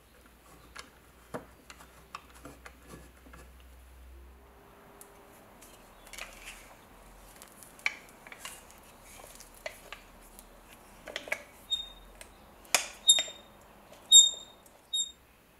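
Light clicks and taps of gloved hands handling an old ship's compass in its metal gimbal bracket, as the bowl is tipped and turned on its pivots. Near the end come a few sharper metal clinks that ring briefly.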